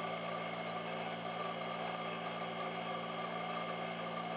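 A Dyna Myte 2800 milling machine, retrofitted with a Centroid Acorn CNC control, cutting a metal block with an end mill. It makes a steady machine hum with a high, even whine over it.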